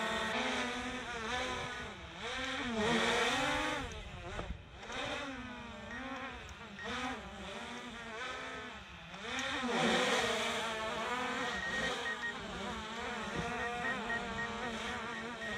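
Quadcopter drone's propellers buzzing in flight, the whine rising and falling in pitch again and again as it makes quick turns. It is loudest about three seconds in and again about ten seconds in.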